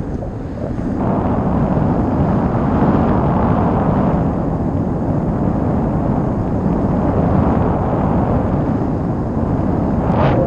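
Airflow buffeting the microphone of a camera carried by a paraglider pilot in flight: a loud, steady low rumbling rush of wind noise. A short sharp noise cuts in right at the end.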